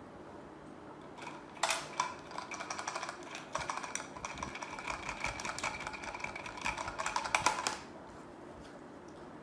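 Crinkly plastic packaging being handled and rustled: a dense, irregular run of rapid crackles. It starts about a second and a half in and stops about six seconds later.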